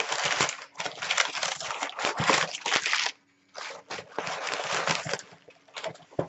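Plastic bubble wrap crinkling and rustling as it is handled and unwrapped: a long stretch of rustling, a brief pause about three seconds in, then more rustling that thins out into a few small crackles.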